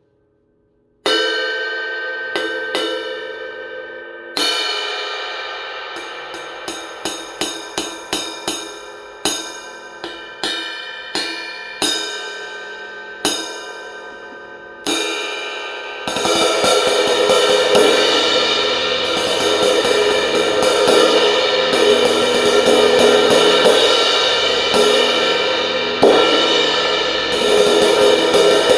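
20-inch Zildjian K Sweet Brilliant crash cymbal prototype struck with drumsticks. The first hit comes about a second in, followed by single strikes each left to ring and fade, then a run of quicker strokes. From about halfway it settles into a continuous loud wash of fast repeated strokes with occasional accents.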